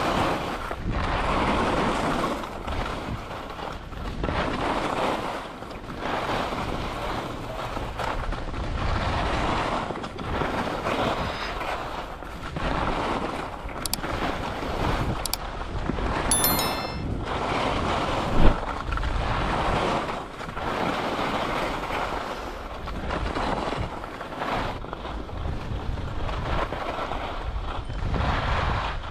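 Wind rushing over the microphone and skis scraping on snow during a downhill run, the noise swelling and fading about once a second. A brief sharp knock comes about two-thirds of the way through.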